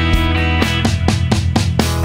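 Rock background music with drums and guitar, on a steady beat.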